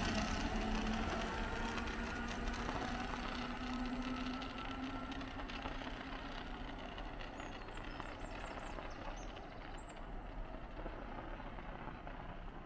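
DB Class 425 electric multiple unit pulling out of the station, its motor hum and rolling noise steadily fading into the distance.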